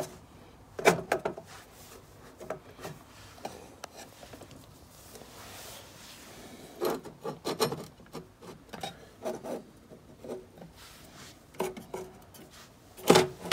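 Stepper drive modules and a controller board being slid and shifted by hand over the base of a metal rack-mount box: rubbing and scraping with scattered light knocks, busiest in the second half.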